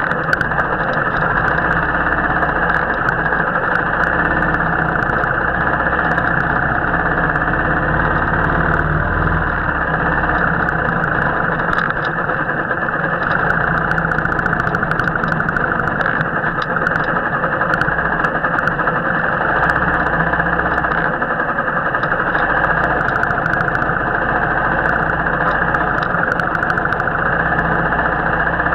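Royal Enfield motorcycle engine running steadily while riding, heard muffled with most of the sound low and dull.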